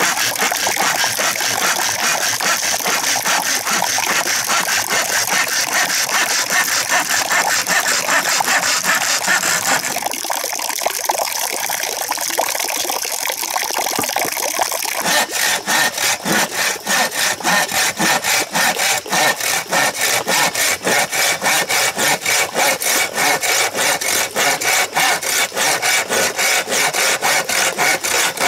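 Hand saw cutting through green bamboo with rapid back-and-forth strokes. About halfway in, the strokes settle into a steady, even rhythm.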